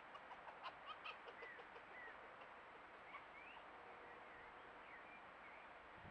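Faint short, high chirping calls, scattered a second or so apart, each rising or falling slightly in pitch. A quick run of faint clicks comes in the first second and a half.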